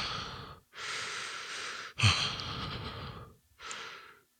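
A man breathing heavily and hard, out of breath from exercise: four loud breaths of about a second each, the first and third starting with a short voiced edge.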